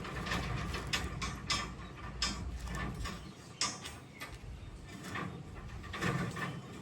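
Mechanical clatter: a run of irregular sharp clicks and knocks over a low rumble, with louder knocks about a second in and again about six seconds in.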